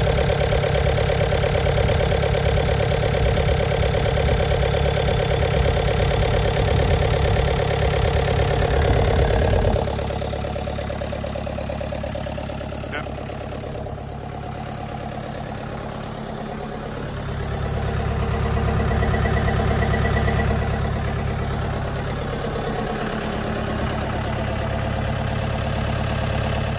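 Harlan HTSX50 tow tractor's Deutz F4M2011 four-cylinder diesel idling steadily. It is loud close up at first and drops noticeably quieter about ten seconds in.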